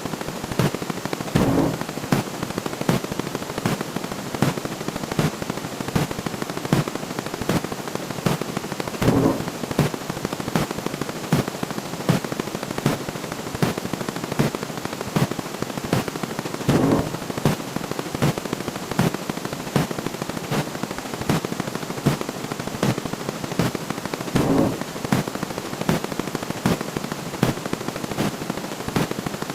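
Counting sound effects played so fast that they blur into a dense rattling crackle, with sharp clicks a few times a second like machine-gun fire. A louder, lower burst comes about every seven and a half seconds.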